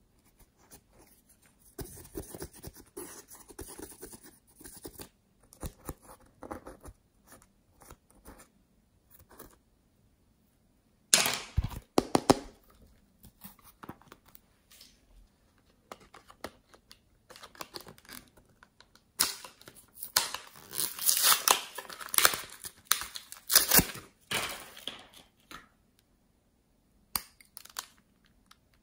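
Crafting materials handled close to the microphone: first a brush scratching glitter powder out of an eyeshadow palette pan, then loud crackling and tearing from a holographic paper sheet with glitter foam cut-outs, in two bouts, the longer one midway through. Near the end come a couple of short clicks as a lipstick-type tube is handled.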